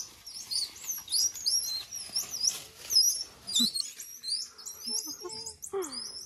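A troop of squirrel monkeys chirping and twittering as they squabble: many quick, high-pitched squeaks that glide up and down and overlap, with a lower falling call near the end.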